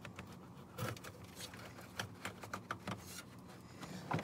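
Faint, irregular clicks and small knocks of a car radio and plastic dash trim being handled and pulled out of the dashboard.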